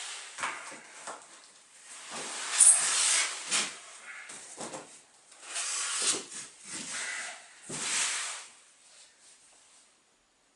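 Rustling and rubbing of packaging in irregular bursts as a boxed floor-standing speaker and its cloth protective bag are handled, busiest in two stretches and dying away near the end.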